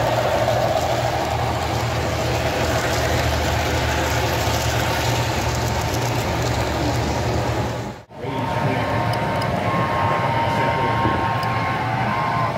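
HO scale model passenger cars rolling past on the track, a steady rolling noise of wheels on rail with a low hum beneath. The sound drops out for a moment about eight seconds in, then goes on at a similar level.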